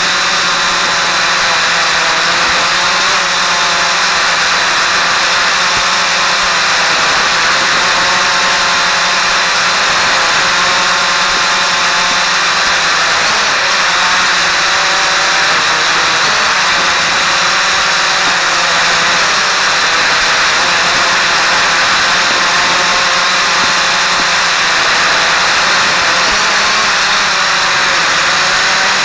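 Quadcopter motors and propellers heard up close: a steady whirring whine with a rush of prop wash, its pitch wavering slightly up and down as the motors change speed in flight.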